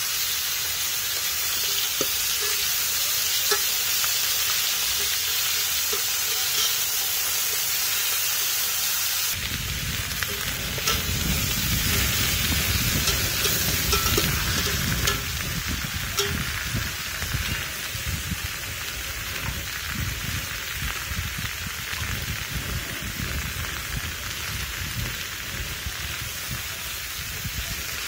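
Fish and green vegetable stems cooking in a stainless steel pot, sizzling steadily, with occasional clinks and scrapes of a metal spatula against the pot. A low rumble comes in about nine seconds in.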